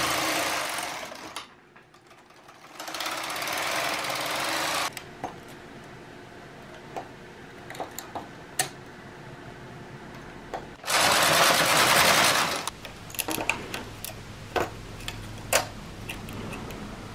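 Carriage of a Brother KH-270 bulky knitting machine pushed across the needle bed, a rushing rattle of a second or two, heard three times. Between the passes come small sharp metal clicks of hand transfer tools on the machine's needles as cable stitches are crossed.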